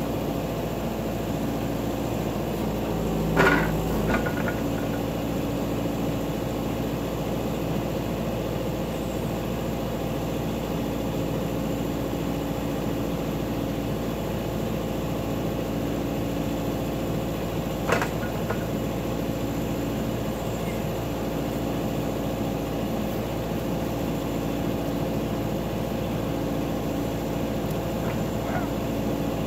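Backhoe engine running steadily under work, with a sharp clank a few seconds in and another around the middle, like the bucket or loader striking something.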